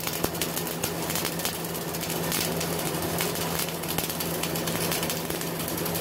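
CO2 MIG welding arc crackling steadily with dense, rapid spatter pops as a vertical bead is run.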